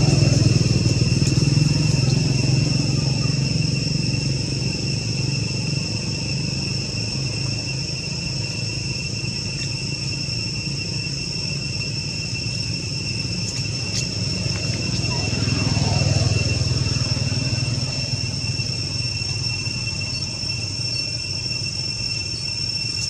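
Steady insect drone, two unbroken high tones, over the low rumble of a motor vehicle. The rumble is loudest at the start, fades, then swells and fades again about two-thirds of the way through.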